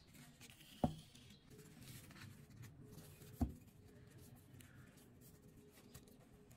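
Sheet of paper rustling as gloved hands wrap it around a steel pipe, with two dull knocks of the pipe against the wooden work surface, the first about a second in and the second midway.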